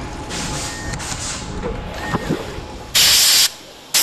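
Compressed-air blow gun giving a loud, half-second hissing blast about three seconds in, with a second blast starting at the very end, over quieter assembly-line mechanical noise.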